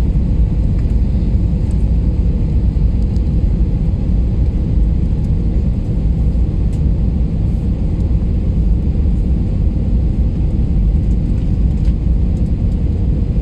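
Airliner cabin noise heard from inside the cabin: a steady low rumble of engines and airflow, with a faint steady hum above it, as the plane descends on approach.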